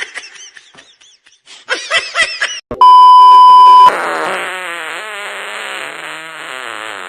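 A loud, steady beep of about one second, followed by a long, wavering fart sound effect lasting about three and a half seconds. A few short squeaky sounds come just before the beep.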